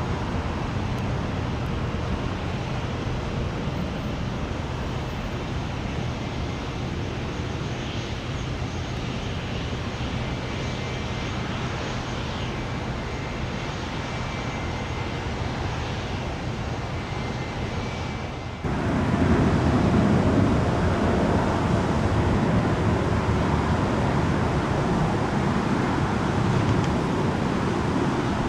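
Jet airliner engines running at an airport, a steady rumble with a faint high whine. About two-thirds of the way in the sound cuts abruptly to a louder, fuller rumble.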